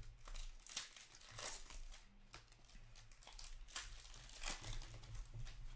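Trading cards being handled: irregular soft rustles and flicks as cards slide against one another and a stack is squared up, over a low steady hum.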